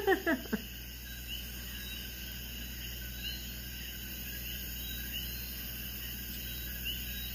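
Coquí frogs calling in the background, short rising chirps about once a second, over a low steady hum.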